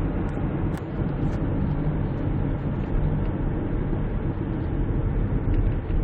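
Steady engine and road noise inside the cabin of a Kia Grand Carnival minivan cruising along a road.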